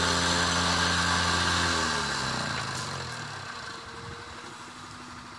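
Liebherr wheeled excavator's diesel engine running loud and steady at working revs, then winding down in pitch and level to a quiet idle about two seconds in.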